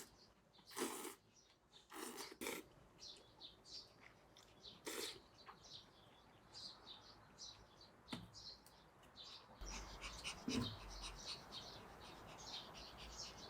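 Faint bird chirping, with three short, louder sounds in the first five seconds and a low rumble with more noise from about ten seconds in.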